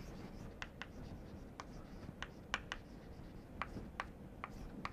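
Chalk writing on a chalkboard: a dozen or so faint, short taps and scratches at an uneven pace as a word is written.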